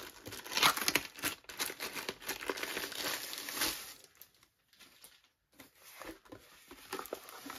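Clear plastic sleeve crinkling as it is slid off a rolled diamond-painting canvas, stopping about four seconds in; after that only faint handling sounds.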